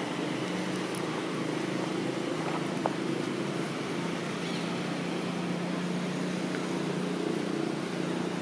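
Steady low motor hum over an even background hiss, with a few faint high chirps.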